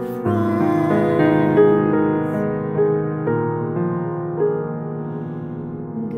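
Grand piano playing a slow, gentle instrumental passage of a ballad, held chords changing every half second or so.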